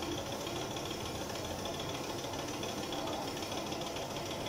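Air compressor running steadily with a rapid low knock, under the hiss of a gravity-feed spray gun spraying paint.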